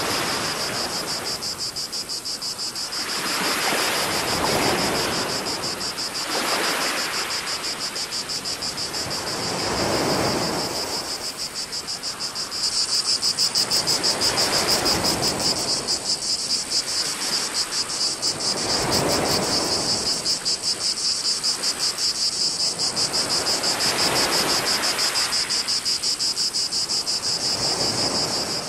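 Small waves washing against the shore in swells every two to three seconds, under a steady high, rapidly pulsing cicada chorus that grows louder about halfway through.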